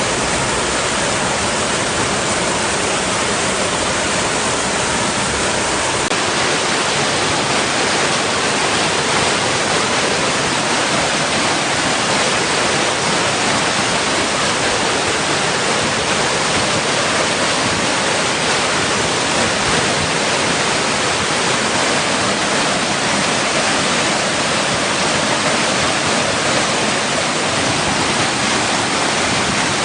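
Water rushing steadily over and against rocks, a continuous even rush with no breaks.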